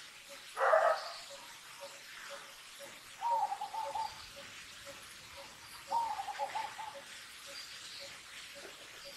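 A baby long-tailed macaque crying: a short squeal about a second in, then two wavering, broken cries a few seconds apart. Under them a faint low call repeats about twice a second.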